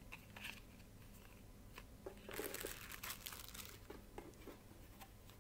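Faint crinkling of packaging being handled, with a few light clicks, loudest for about a second between two and three seconds in.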